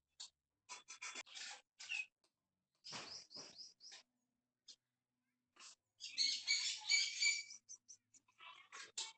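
Short, high-pitched animal chirps and squeaks come in scattered bursts. About six seconds in there is a louder shrill chattering burst lasting over a second.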